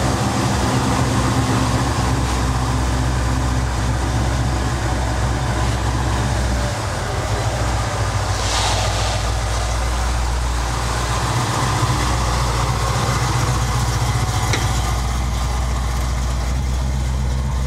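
Ford Mustang Mach 1's V8 engine idling steadily, with an even low exhaust note; near the end the car is moving out under low throttle.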